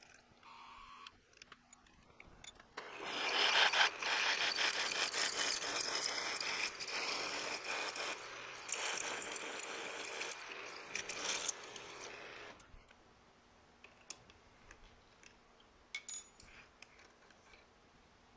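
A 31/64-inch twist drill in the milling machine spindle cutting into a steel block, a harsh, gritty scraping from about three seconds in until it stops at about twelve and a half seconds. The hole is drilled just under half an inch to leave stock for a reamer. A few light clinks of chips follow near the end.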